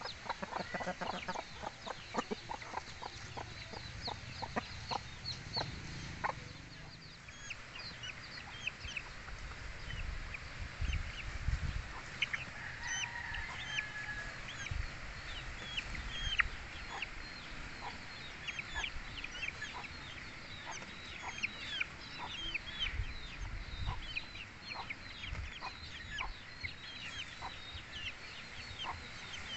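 Backyard native chickens peeping: a steady stream of short, high, falling notes from chicks and young birds, with some clucking among them.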